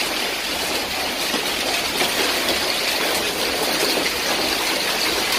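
Hailstones and heavy rain pelting into a swimming pool and onto the paving around it: a dense, steady hiss of splashes.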